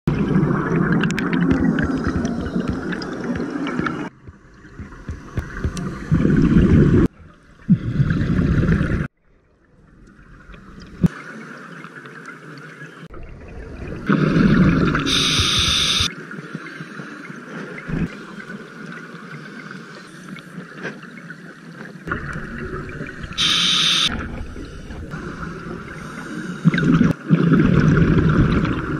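Scuba diver's regulator breathing recorded underwater through a GoPro housing: several loud bubbling rushes of exhaled air leaving the regulator, with quieter stretches between them and two short high hisses. The sound breaks off abruptly at several points where the shots change.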